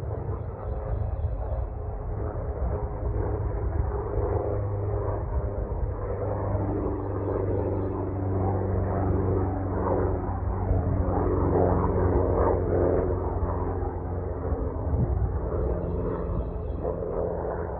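Small propeller airplane's engine droning steadily, growing louder toward the middle and then easing off a little.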